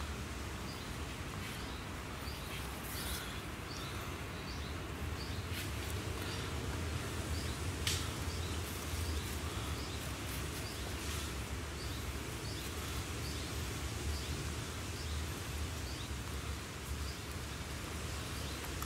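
Woodland ambience: a steady low rumble, with a small bird repeating a short high note two or three times a second. A few light rustles and knocks come from cord and poles being handled, the sharpest a tick about eight seconds in.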